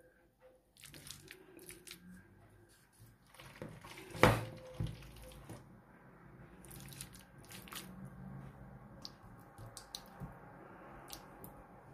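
Soft handling noises of scattered light clicks and knocks, with one sharp knock about four seconds in. Near the end, a metal knife scrapes and pats as it smooths a mayonnaise salad on a china plate.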